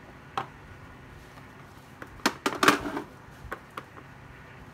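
A few scattered knocks and clicks of hard plastic battery chargers being handled and set down, with a short cluster about two to three seconds in, the loudest near its end.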